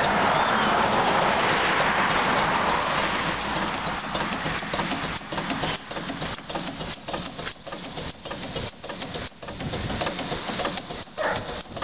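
Home-built Ruston Proctor SD class steam tractor in steam: a steady hiss of steam for the first few seconds, giving way after about five seconds to the engine's quick, even exhaust beats as it runs.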